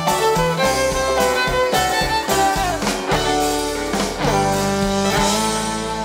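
Live string band playing an instrumental passage, with a bowed fiddle carrying the lead over acoustic guitar and a steady bass line.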